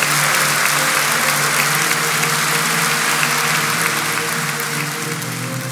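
Audience applauding over steady background music, the clapping thinning out near the end.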